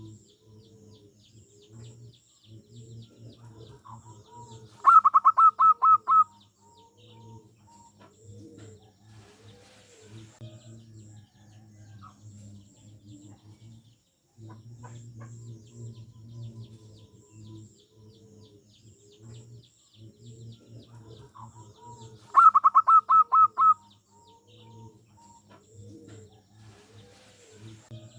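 Zebra dove (perkutut) singing twice, each song a quick run of about eight staccato cooing notes lasting just over a second. Softer low cooing and faint high chirps of other birds carry on throughout.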